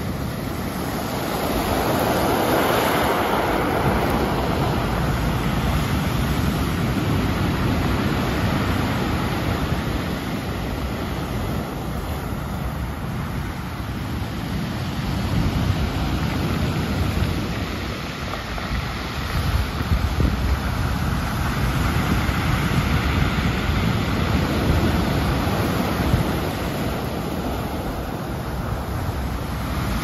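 Ocean surf breaking against large rocks and washing up over a pebble beach: a continuous rushing wash that swells about two seconds in and again in the second half as waves break.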